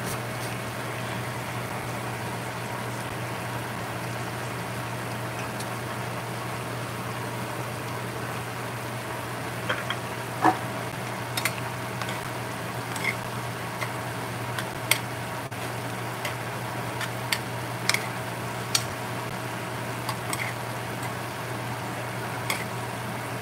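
Broth of ground chicken, cauliflower and glass noodles simmering and sizzling in a stainless steel skillet, over a steady low hum. From about ten seconds in come scattered pops and crackles.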